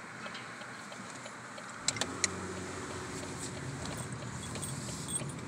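Car driving, heard from inside the cabin: steady road and engine noise. About two seconds in there are two sharp clicks, and the engine noise grows deeper and a little louder.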